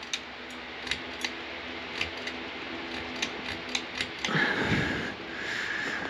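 Ceiling fan pull-chain switch clicking about a dozen times at uneven intervals as the chain is pulled again and again, testing a fan that isn't working. Near the end a breathy rushing noise takes over.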